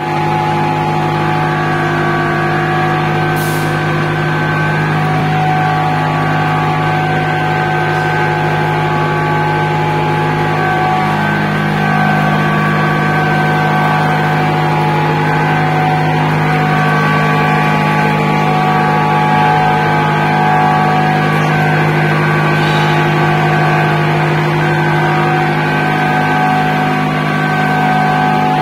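Concrete pipe-making machine and its feed conveyor running while concrete is placed into a vertical RCC Hume pipe mould: a loud, steady machine hum with several held tones, a further tone joining about a third of the way in.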